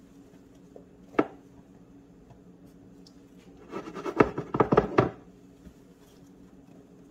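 A single sharp knock, then, about four seconds in, a quick run of clicks and scrapes as a glass Pyrex measuring cup holding dry pancake mix is handled on a countertop. A faint steady hum runs underneath.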